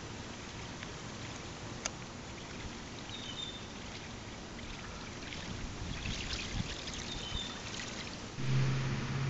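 Handmade topwater duckling lure with counter-rotating aluminium propeller blades being reeled across the surface of a pond, its blades churning the water into a light splashing gurgle. There is a sharp click about two seconds in, and a low steady hum starts near the end.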